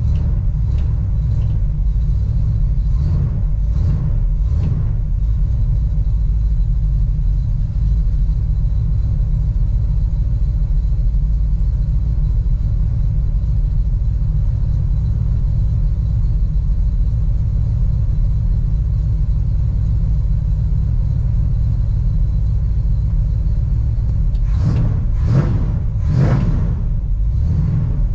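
Chevrolet crew cab pickup's engine idling just after a cold start, heard from inside the cab as a steady low rumble. A few brief sharp sounds come in the first few seconds and again near the end.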